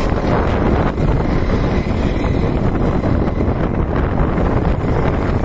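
Wind buffeting the microphone, loud and steady, over the engines of go-karts running past on the track.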